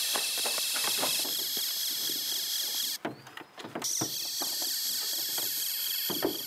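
Quick running footsteps on brick paving under a steady high-pitched tone, then hollow knocks from a plastic wheelie bin as a child climbs into it near the end.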